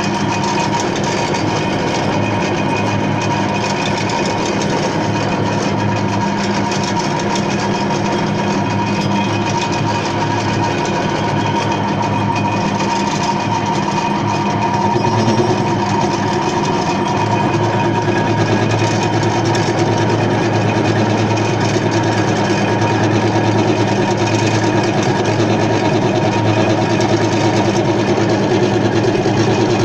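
A homemade lathe running steadily, its motor and drive giving a constant hum with a whir above it. It gets a little louder about halfway through.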